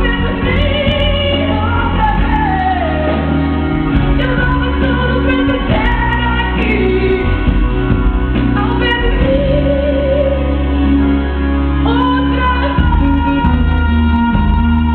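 A song: a woman singing a slow melody over backing music with sustained low bass notes and held chords.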